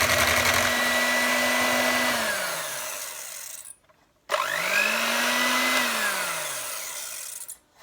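Electric hand mixer whisking a thick mixture of whipped cream, caramel and grated chocolate. The motor is switched off about two seconds in and winds down to a stop, then runs again briefly, rising to speed, and winds down to a stop near the end.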